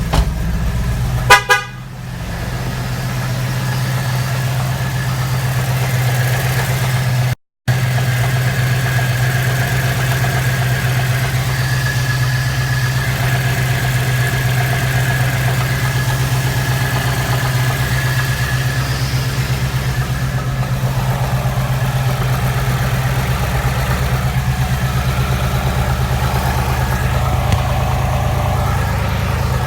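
2017 Ford Mustang engine running steadily at idle with a knock that the owner hears at only 3,200 miles. A brief loud horn-like tone sounds about a second in, and the sound drops out for about half a second around seven seconds in.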